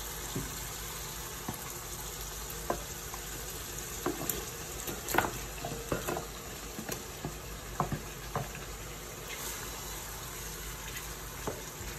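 Marinated chicken pieces sizzling as they go into hot oil and masala in a pan, a steady frying hiss. Through the middle come scattered knocks and scrapes from a wooden spatula pushing the chicken out of a plastic container and stirring it in the pan.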